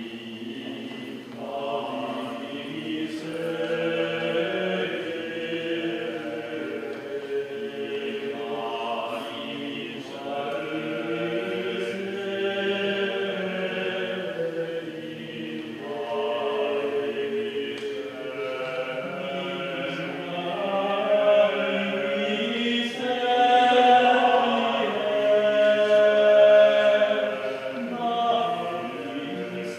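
A choir singing sacred liturgical chant, several voices overlapping in sustained lines, growing louder about two-thirds of the way through.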